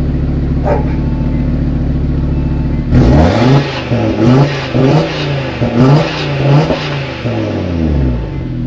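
2018 Audi TT RS's turbocharged 2.5-litre five-cylinder engine idling steadily, then revved in several quick blips from about three seconds in, dropping back to idle near the end. The car is in comfort mode with the sport exhaust valves open.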